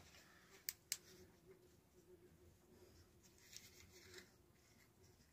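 Near silence: quiet room tone, with two faint clicks just under a second in and a couple of fainter ticks later.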